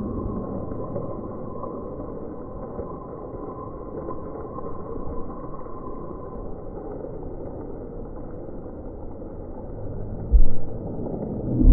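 Steady rain falling on a wet concrete lane, an even hiss throughout, with a single low thump about ten seconds in.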